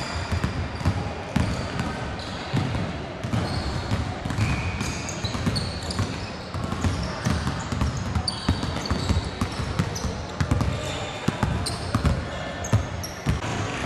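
Several basketballs dribbled at once on a hardwood gym floor, a dense, irregular patter of bounces, with short high squeaks of sneakers on the court.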